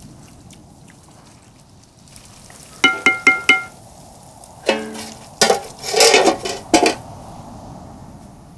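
A wooden spatula knocked four times in quick succession against a large metal cooking pot, the pot ringing. Then a flat metal lid clanks down onto the pot and clatters and scrapes, metal on metal, as it is settled in place.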